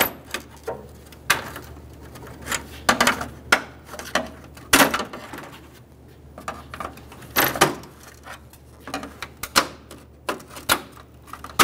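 Irregular sharp plastic clicks and snaps, about a dozen, as a flat-blade screwdriver pries the plastic locking clips of a Chevrolet Trailblazer's front grille free along its top edge.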